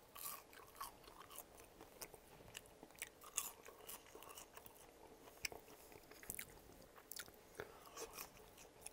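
A person chewing crisp-crusted Cavendish frozen french fries, with quiet, irregular crunches and mouth clicks.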